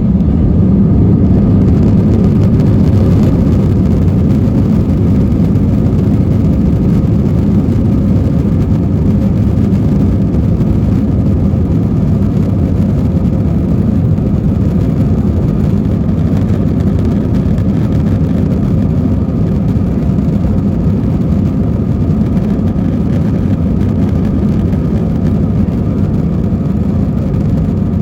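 Airbus A321 cabin noise heard from a passenger seat: jet engines and airflow making a loud, steady low rumble.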